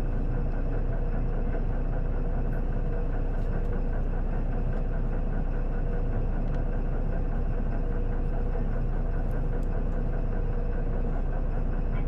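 Isuzu city bus's diesel engine (PJ-LV234L1) idling steadily, heard from inside the cabin, with no change in engine speed.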